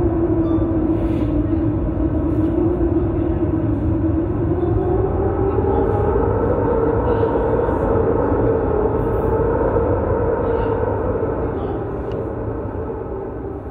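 Droning soundscape played over a PA: a steady low rumble under a held tone that slowly rises in pitch about halfway through, fading toward the end.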